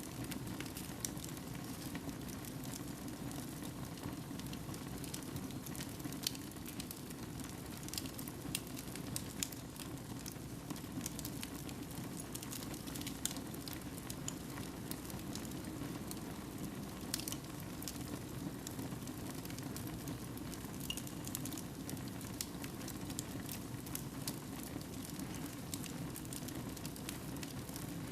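Fire burning in a fireplace: a steady low rush with frequent small crackles and pops scattered throughout.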